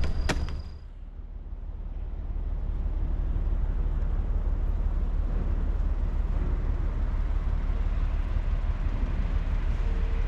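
A taxi's rear door shuts with a single sharp knock just after the start, followed by steady low rumbling noise.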